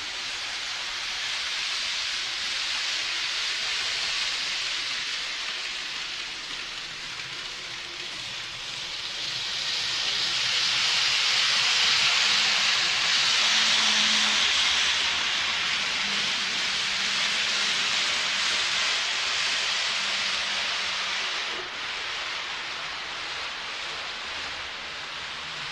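N gauge model train running on the layout's track, its wheels and small motor making a steady whirring hiss with a faint hum underneath. The sound swells in the middle and eases off again, as the train passes close by.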